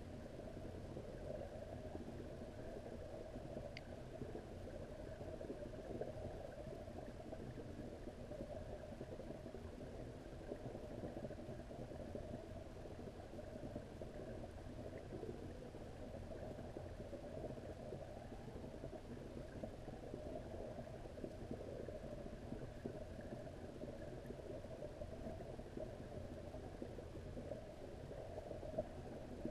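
Steady, muffled low rumble and faint hum of pond water heard through an underwater camera, with one faint tick about four seconds in.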